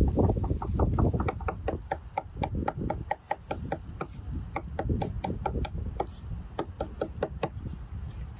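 Rapid run of light, sharp knocks at roughly four a second, each with a short ring, over a low rumble that fades after the first couple of seconds.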